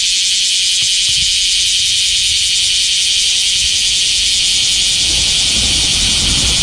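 Cicadas (semi) singing in a loud, steady, high buzzing chorus. A low rumble joins in near the end.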